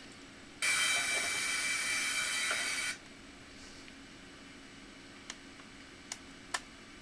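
An aerosol can spraying in one steady hiss for a little over two seconds, then three light clicks.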